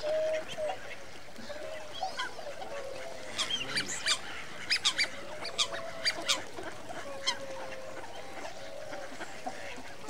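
A flock of wintering migrant waterfowl calling, with drawn-out calls throughout and a flurry of short, sharp, high-pitched calls from about three to seven seconds in.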